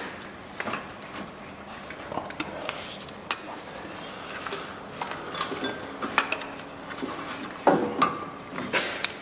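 Hand tools clinking and tapping against metal engine parts: a string of light, irregular metallic clicks and clinks.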